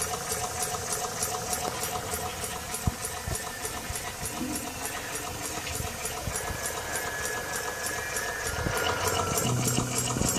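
Homemade mini steam engine running fast and steadily, with a quick, even row of exhaust chuffs, as it turns a wooden propeller through a string belt.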